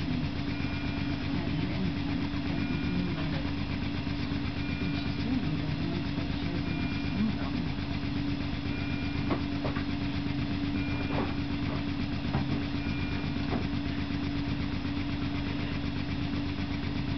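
Neonatal intensive care equipment around an incubator: a steady hum with a fast, even low pulsing underneath, and a short two-tone electronic beep about every two seconds that stops a few seconds before the end.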